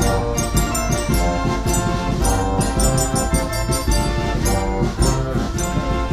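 Instrumental background music with a steady beat and many sustained notes.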